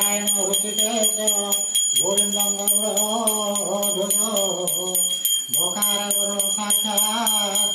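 Small brass puja handbell rung continuously and rapidly, about five strokes a second, with a steady high ringing. A voice chants a mantra over it in long held notes, in three phrases.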